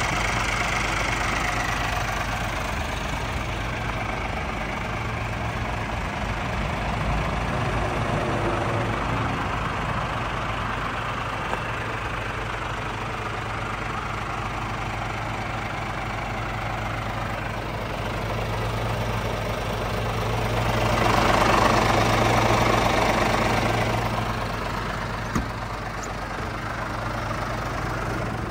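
Scania R450's 13-litre straight-six diesel idling steadily. The sound grows louder for a couple of seconds about three-quarters of the way through, and there is a single sharp click near the end.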